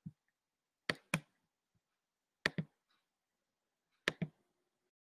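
Three pairs of short, sharp taps, each pair about a second and a half after the last, with dead silence between.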